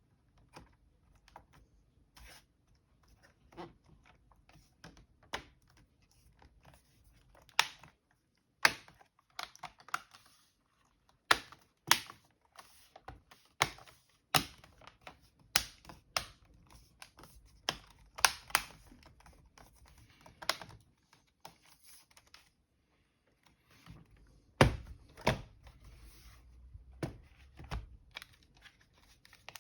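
Irregular sharp plastic clicks and snaps from laptop parts being handled and fitted together by hand during reassembly, a few of them much louder than the rest, with fainter ticks between.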